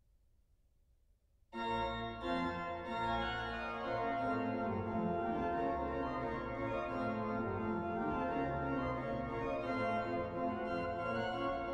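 Historic 1727 Müller pipe organ: after a second and a half of near silence, full chords enter suddenly and the organ plays on loud and sustained, rich in both deep bass and high pipes, as a new piece or movement begins.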